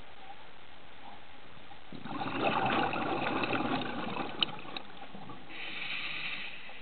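Scuba regulator breathing heard underwater: a burst of exhaled bubbles about two seconds in, with a sharp click in the middle, then a short hiss of inhalation near the end.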